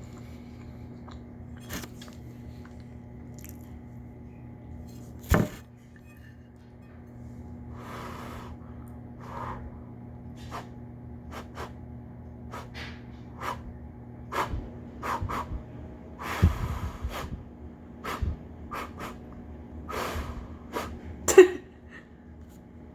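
Close-miked eating of a burrito: scattered wet mouth clicks and smacks with a few longer chewing stretches, the sharpest click about five seconds in and another near the end, over a steady low hum.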